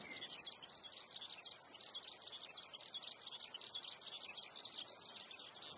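Faint, continuous chatter of rapid high-pitched chirps from small birds.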